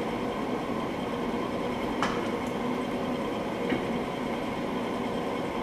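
Steady background hum with two light metallic clicks, one about two seconds in and a fainter one near four seconds, from brake parts being handled as the rear brake caliper is worked back into place.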